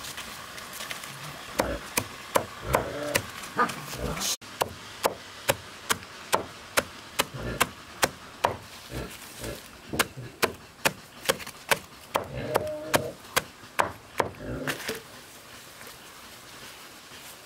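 A machete chopping a pile of leafy greens on a tarp over hard ground: a steady run of sharp chops, about two or three a second, that stops a couple of seconds before the end.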